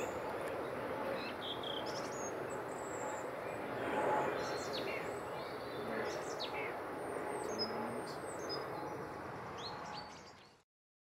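A turboprop airliner passing overhead with a steady rushing drone, while small birds chirp and call repeatedly over it. The sound cuts off suddenly near the end.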